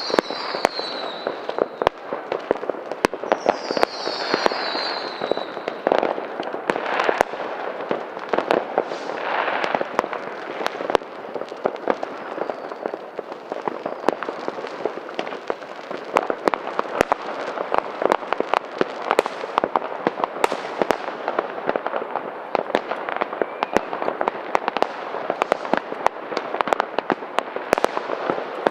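Fireworks and firecrackers going off in a dense, continuous run of bangs and crackling. A whistling firework gives a falling whistle at the start, and another comes about four seconds in.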